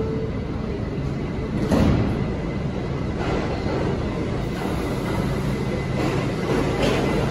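R160B subway car's sliding doors closing with a sharp thump about two seconds in, over the steady hum of the stopped train. A few fainter clunks follow.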